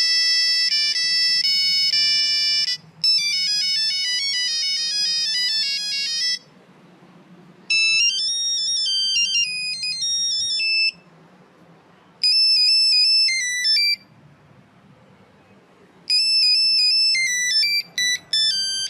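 A series of electronic phone ringtones, beeping synthetic melodies played one after another. There are five short snippets, each a few seconds long and cut off abruptly, with brief gaps between them.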